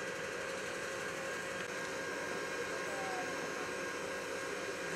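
Steady hum and hiss of running machinery, with a constant whine held at one pitch throughout.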